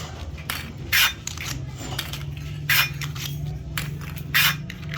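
Factory machinery running with a steady low hum, and a short scraping or hissing burst repeating about every 1.7 seconds, three times, like a machine working through its cycle.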